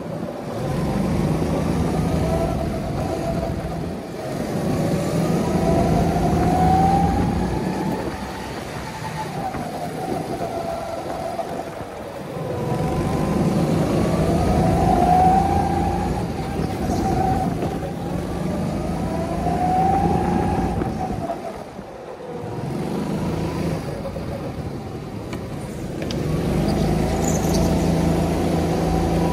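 Go-kart petrol engine heard from the driver's seat, its pitch climbing along the straights and dropping away as the driver lifts for the corners, about three times over.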